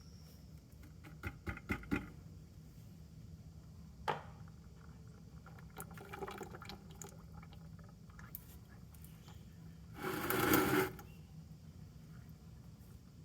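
Hot engine oil draining from a tractor's sump into a bucket, a steady pour of liquid. A few clicks near the start, and a louder noisy rustle lasting about a second around ten seconds in.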